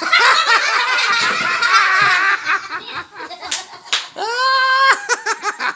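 Loud, high-pitched laughing for the first couple of seconds, then scattered snickers, a sharp click, and a long high-pitched cry held for most of a second near the end.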